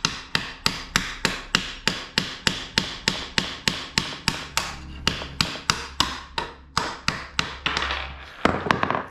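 Hammer striking a snapped electric-scooter shock pin to drive it out of the shock mount: a steady run of sharp taps, about three a second, as the pin works loose.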